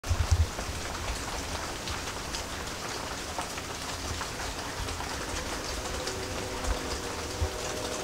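Steady rain falling, with many single drops ticking on nearby surfaces. A few low thumps in the first half second.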